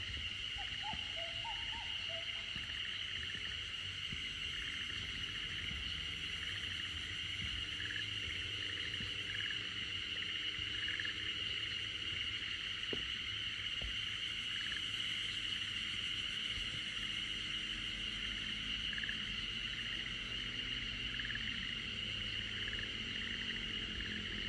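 A steady, high-pitched chorus of insects buzzing, with a faint pulse about once a second.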